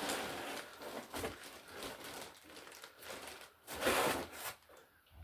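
Packaging being handled: irregular rustling and crinkling, with a louder burst of it about four seconds in.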